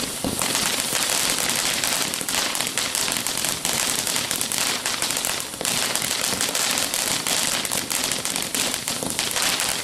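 Consumer firework crackling: a dense, rapid run of small pops that goes on for about ten seconds and then cuts off.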